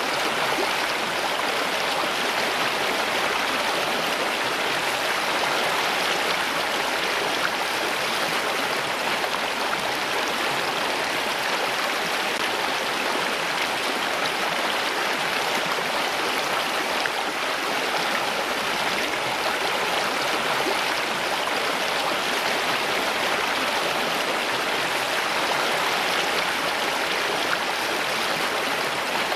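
Steady rush of running water, an even flow with no pauses or changes in level.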